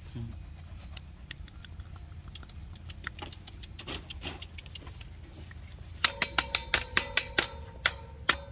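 A fast run of sharp metallic strikes, about four a second, each leaving a ringing tone, starting about two-thirds of the way through. Before it there is only a low hum with a few faint scattered clicks.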